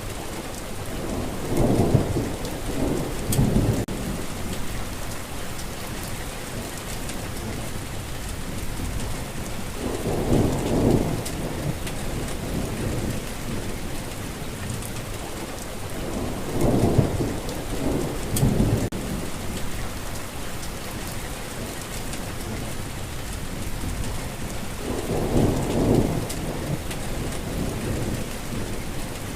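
Steady rainfall with four low rolls of thunder, spaced about seven to eight seconds apart.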